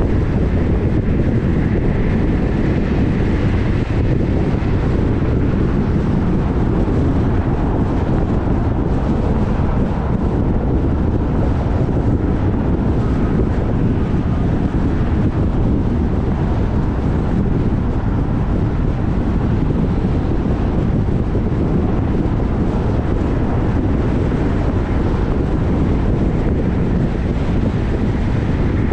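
Wind buffeting the microphone over a steady low rumble, unbroken throughout.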